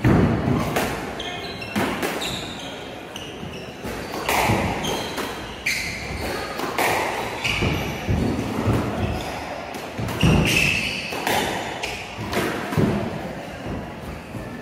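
Squash rally: the ball is struck by racquets and smacks off the court walls roughly once a second, each hit echoing around the enclosed court. Short high squeaks of shoes on the wooden floor come between the hits.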